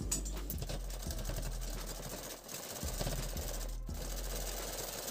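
Satyam domestic sewing machine stitching a seam, its needle and feed running in a rapid, even chatter that eases off briefly about halfway through.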